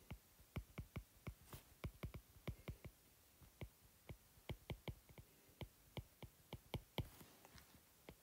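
Faint, irregular clicks of a stylus tip tapping a tablet screen while handwriting, about three or four a second.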